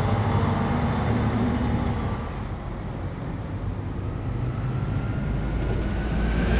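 City bus engine running as the bus passes on the street, a steady low rumble with a faint whine rising in pitch over the last few seconds. It gets louder near the end.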